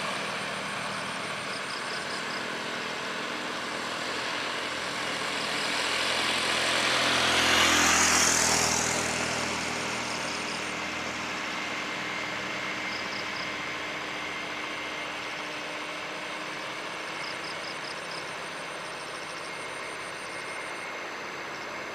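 Road traffic on a hill: the engines and tyres of passing motorcycles, cars and a diesel truck, swelling as one vehicle passes close about eight seconds in. Faint repeated high chirps sound now and then.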